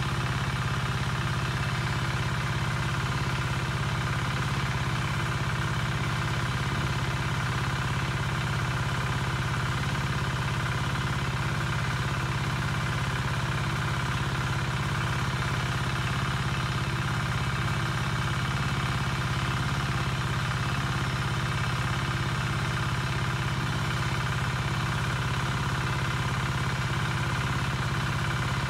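Steady mechanical drone of a small motor running at constant speed, unchanging throughout.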